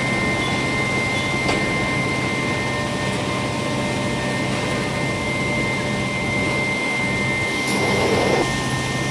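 Steady industrial machinery noise: a low hum under a constant high whine, with a short rush of hiss about eight seconds in.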